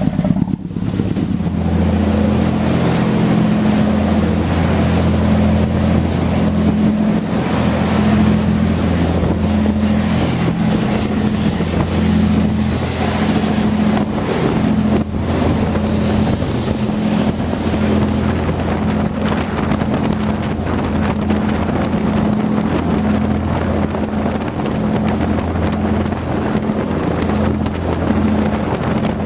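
A boat's engine running steadily underway, a constant low hum, with wind buffeting the microphone.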